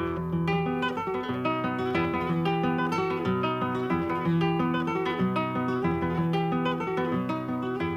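Acoustic guitar music, the instrumental opening of an Argentine folk song, starting suddenly after silence.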